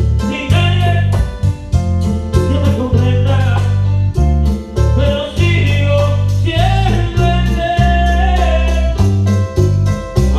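Live band playing a song with a singer: deep sustained bass notes under the voice and a quick, even beat of about four ticks a second.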